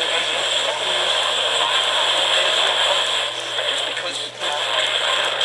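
Radio receiver on a weak, noisy station: steady static hiss with a low hum, faint broadcast speech underneath, and a brief dropout about four seconds in.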